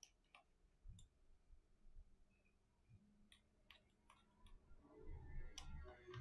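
Faint, scattered clicks of a precision screwdriver bit and a phone's metal frame as the pentalobe screws at the bottom edge of an iPhone 8 are undone, with some light handling noise near the end.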